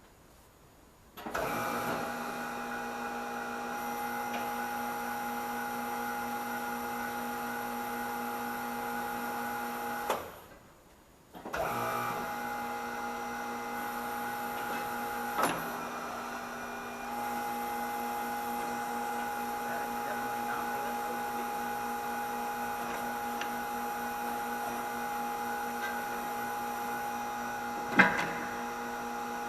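A machine's electric motor running with a steady multi-pitched hum. It stops about ten seconds in and starts again a second or so later. A few sharp knocks of metal work are heard over it.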